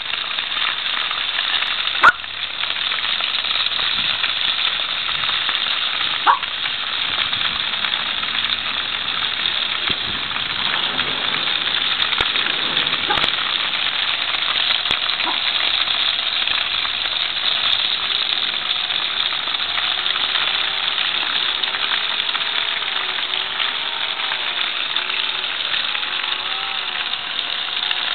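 Chicken wings, sausages and vegetables sizzling in foil trays over a charcoal grill: a steady hiss, with two sharp clicks in the first several seconds.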